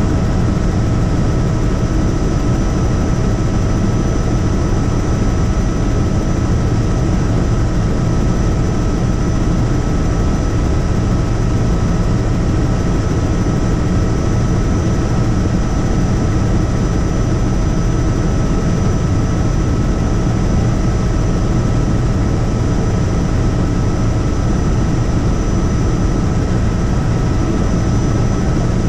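Helicopter in flight: a loud, steady drone of the engine and rotors with a thin, steady whine over it.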